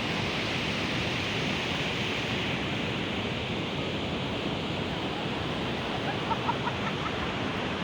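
Ocean surf breaking on a beach at high tide in strong wind: a steady, unbroken rush of noise. About six seconds in, a few short, faint pitched calls sound over it.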